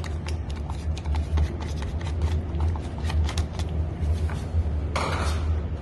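Cooking sounds at a soup pot as chopped garlic is added: irregular small clicks and taps, with a short rustling burst near the end, over a steady low hum.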